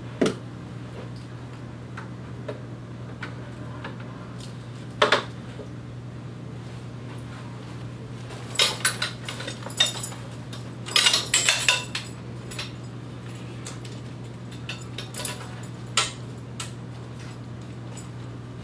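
Aluminium paramotor frame parts knocking and clinking as they are handled and fitted together: a knock near the start, another about five seconds in, a busy run of clinks and rattles from about eight to twelve seconds, and one more near the end. A steady low hum runs underneath.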